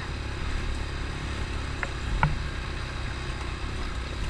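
ATV engine running steadily with a low rumble, with two short clicks about two seconds in.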